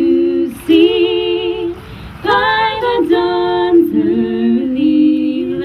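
A young woman singing unaccompanied into a microphone, holding several long notes with a slight waver and short breaks between them.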